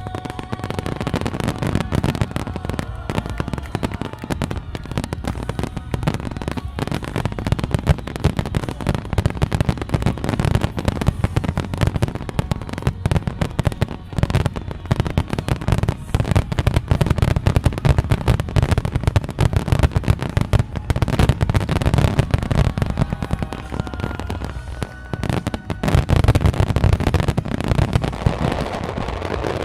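Fireworks display: a dense, continuous barrage of bangs, pops and crackling from many shells bursting in quick succession. It eases briefly about 25 seconds in, then builds again.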